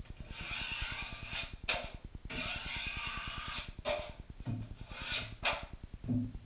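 Drywall knife scraping hot mud along a corner bead in several long strokes, with a few short sharp scrapes, over a fast, steady low pulse.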